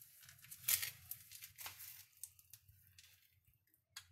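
A spoon stirring and scraping through a crumbly mix of roasted wheat flour, jaggery and fried edible gum on a steel plate: a run of short scrapes and rustles, the loudest about a second in.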